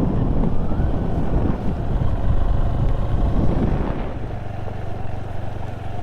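Adventure motorcycle on the move, with heavy wind buffeting on the microphone over the engine. About four seconds in the wind noise drops and a steady low engine hum comes through, as the bike slows.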